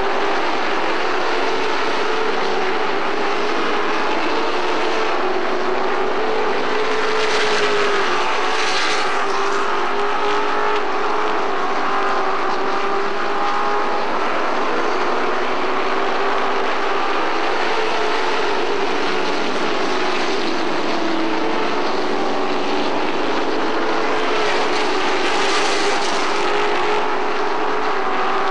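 Pack of Pro Truck race trucks' V8 engines running at racing speed around a short oval, a continuous drone whose pitch rises and falls as they go through the turns. It swells twice as trucks come by, about eight seconds in and again near the end.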